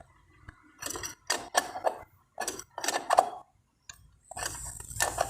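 Metal clutch parts of a Bajaj Discover motorcycle engine clinking and knocking as the clutch hub is fitted onto its shaft: a run of sharp metallic clicks in two short clusters.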